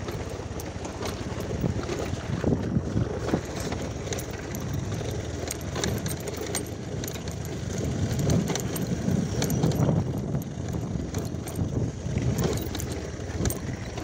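Motorcycle running over a rocky dirt track, its low engine rumble mixed with rattling and frequent knocks from the bike jolting over stones.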